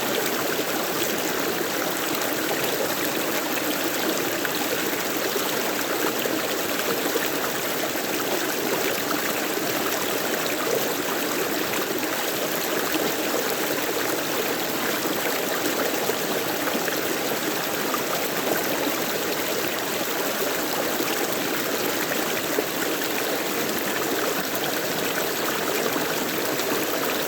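Stream water flowing and trickling steadily, with no change in level.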